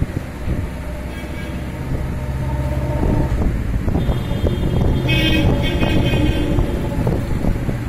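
A motor vehicle engine running with a steady low hum, with a vehicle horn sounding briefly about five seconds in. Light clicks are scattered throughout.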